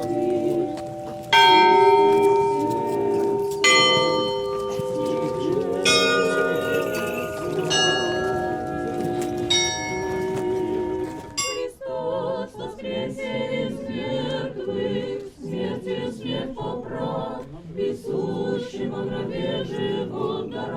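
Orthodox church bells pealing, a new strike ringing out roughly every two seconds, over a crowd singing. The bells stop about twelve seconds in, and the unaccompanied singing carries on.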